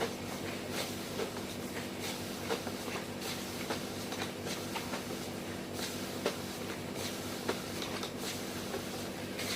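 Electric rotary creasing and perforating machine running: a steady motor hum with irregular light clicks and ticks from the mechanism.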